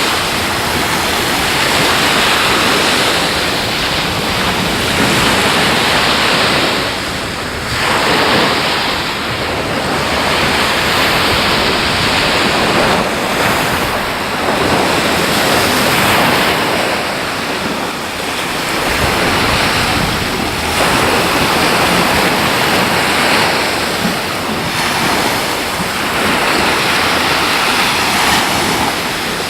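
Ocean surf breaking on a beach, a constant loud wash that swells and eases every few seconds, with wind on the microphone.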